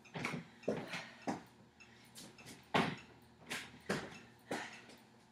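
Box jumps: feet thumping onto a stacked plastic aerobic step platform and stepping back down onto the floor, a thump a little under twice a second.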